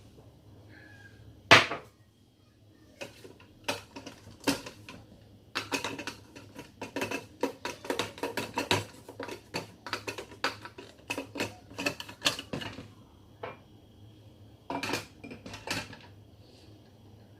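Dishes clinking and knocking as they are handled, with one loud knock about a second and a half in, a dense run of clinks through the middle, and a few more near the end.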